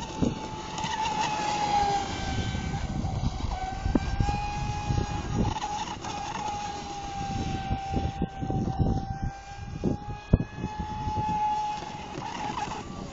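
Electric motor of a radio-controlled mono speedboat running flat out on a 4S LiPo pack, a high steady whine that wavers slightly in pitch as the boat runs across the water.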